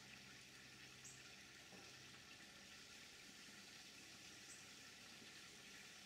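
Near silence: faint steady outdoor hiss, with two brief, faint high-pitched sounds about a second in and near the middle.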